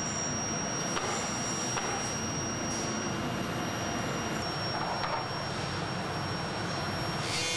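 Steady running noise of a foundry melting furnace and its fume-extraction hood, with a thin, steady high whine over it.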